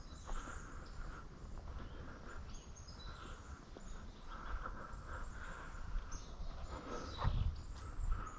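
Woodland ambience: small birds chirping now and then over a steady outdoor background, with a heavier footfall thud about seven seconds in.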